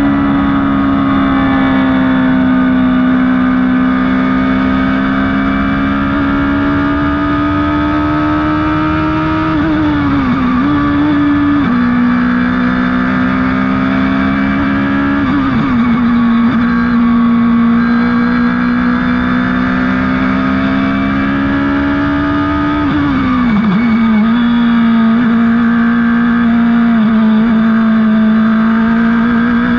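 Radical SR3 race car's motorcycle-derived four-cylinder engine running hard at high revs, heard from the open cockpit on track. The engine note holds steady for long stretches and dips and picks up again a few times, about ten, twelve, fifteen and twenty-three seconds in.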